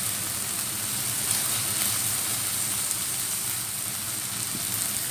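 Ground beef sizzling in oil in a frying pan: a steady hiss of frying.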